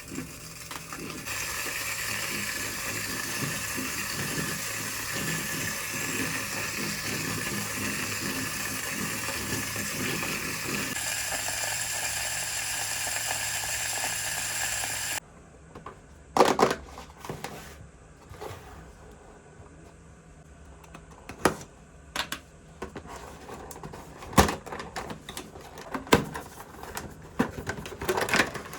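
Small battery motor of a toy kitchen appliance whirring steadily, with a change in its sound partway through. It cuts off suddenly about fifteen seconds in, followed by scattered clicks and taps of plastic parts being handled.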